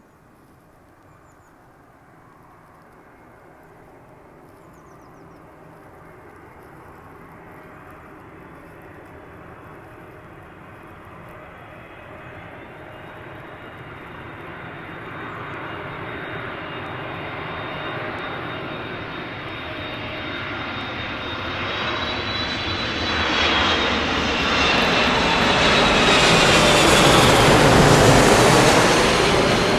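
Boeing 747-400 freighter on approach to land, the whine and rumble of its four jet engines growing steadily louder as it comes closer. It is loudest near the end as it passes, then begins to fade.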